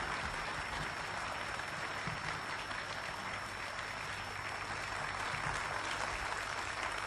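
Studio audience applauding: many hands clapping together in a dense, steady patter.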